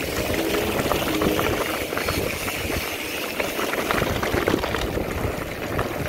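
Mountain bike tyres rolling over a loose, rocky gravel track: a steady dense crackle of stones crunching under the knobby tyres, with the bike rattling over the bumps.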